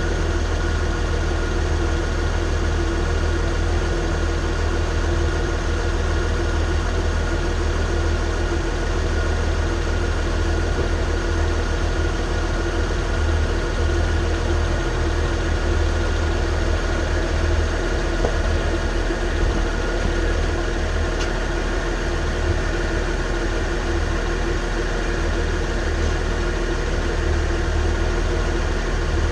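Mercedes ML350 under way with a bad driveshaft carrier bearing: a steady low drone with a constant whine on top, the noise of the worn bearing.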